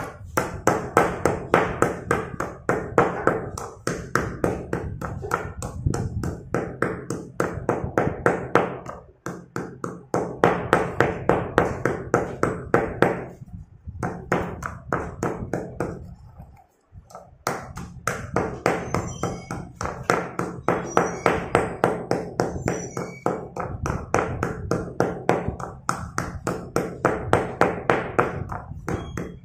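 Slate pencils being pounded and crushed with a pestle in a stone mortar: quick crunching strikes, about four a second, with brief pauses, the longest about halfway through.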